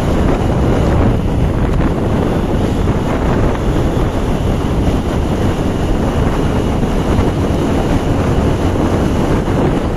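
Steady wind noise buffeting the microphone on a moving motorcycle at highway speed, mixed with road rush from the ride.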